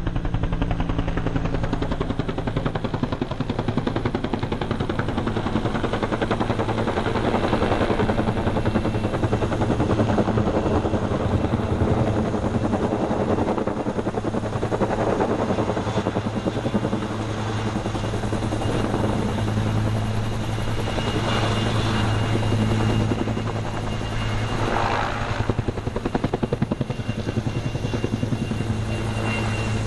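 Firefighting helicopter with a water bucket slung beneath it, flying low overhead with a rapid, steady beat of its rotor blades.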